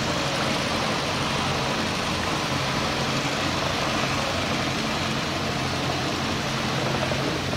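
Small petrol long-tail boat motor running steadily at a constant throttle, a low engine hum over a steady rush of noise.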